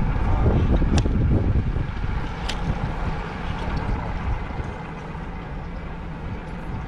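Steady low rumble of wind and the boat's motion on the microphone aboard a small inflatable boat, with two sharp clicks, about a second in and again about two and a half seconds in.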